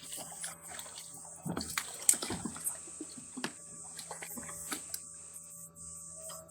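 Water splashing and sloshing with irregular small clicks and knocks, busiest and loudest from about a second and a half to two and a half seconds in.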